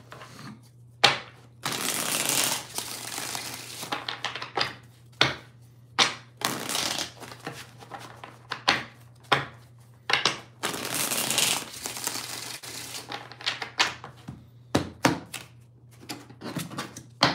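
A tarot card deck being shuffled by hand: stretches of cards sliding against one another, broken by sharp clicks, over a faint steady low hum.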